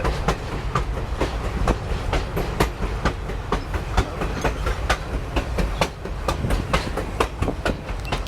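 Passenger train running along the track, heard from the open rear platform of the last car: a steady low rumble from the wheels and trucks, with rapid clicking as the wheels pass over the rails.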